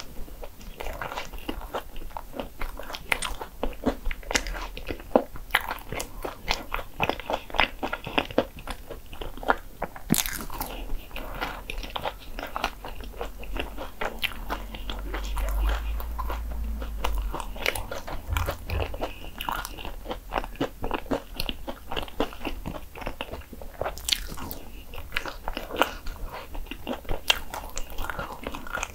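Hong Kong egg waffle being eaten: crunchy bites and chewing in a steady run of crunches throughout.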